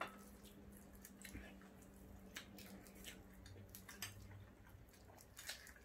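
Near silence with faint table-eating sounds: scattered light clicks of spoon and fork on plates, and quiet chewing, over a faint steady hum.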